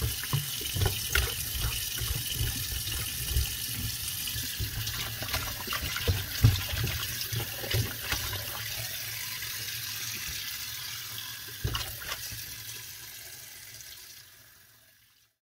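Water running from a kitchen tap into a sink, with knocks and clatter of things being handled under it, fading out near the end.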